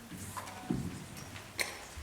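Footsteps: a couple of dull thuds, with a sharp click about a second and a half in.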